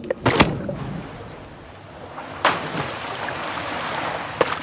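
Sea water splashing and sloshing, with three sudden louder splashes: one about half a second in, one halfway through, and one near the end.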